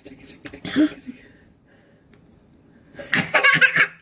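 A small child laughing: a short breathy burst about a second in, then a loud, high-pitched wavering burst of laughter near the end.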